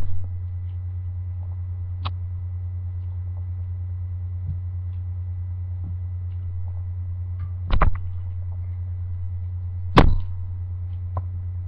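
Steady low electrical hum with a few short knocks and bumps as stuffed toys are moved about close to the microphone, the two loudest knocks about eight and ten seconds in.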